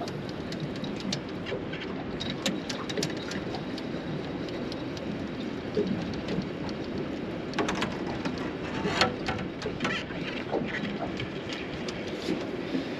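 Steady wash of water against a small boat's hull, with scattered light clicks and knocks that come thickest between about 7 and 10 seconds in.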